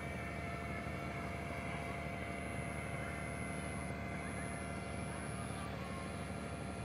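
Docked passenger ferry's engines running: a steady low drone with a few faint steady whining tones above it.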